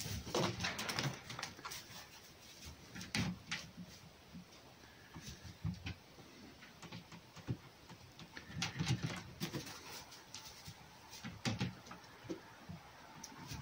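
A red fox and a cat scuffling in play on hay and a wooden kennel box. Several bursts of rustling, scrabbling paws and knocks, the busiest at the start and again around nine seconds.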